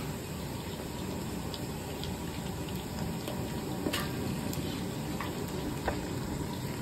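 Steady rushing and sizzling from a large aluminium kadhai on a gas burner as raw mutton pieces are dropped into fried onions in hot oil, with a few light knocks.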